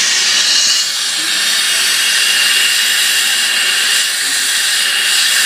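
Gas plumbing torch flame hissing steadily while sweating a copper pipe joint, dipping slightly about a second in.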